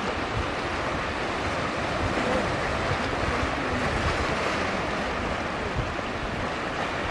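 Sea surf washing steadily against the shore, with wind buffeting the microphone in low rumbles.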